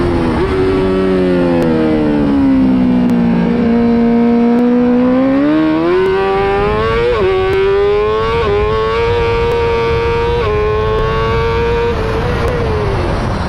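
Honda Fireblade's inline-four engine at racing revs: the pitch drops as the bike slows, then climbs hard with a few quick gear changes, and falls off again near the end.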